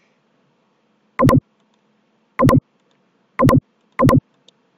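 Computer mouse clicking four times, each click a quick double tick. The clicks come about a second apart, the last two closer together.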